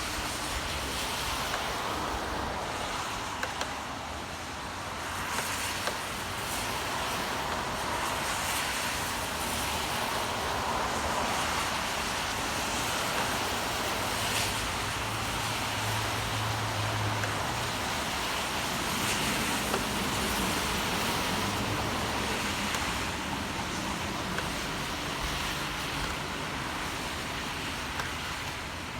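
Steady rain with city traffic on a wet street: a constant hiss of rain and tyres on wet road, with the low hum of vehicles passing now and then.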